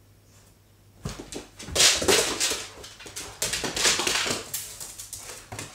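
Rottweiler making a quick run of short, breathy, noisy sounds during rough play with a kitten, starting about a second in.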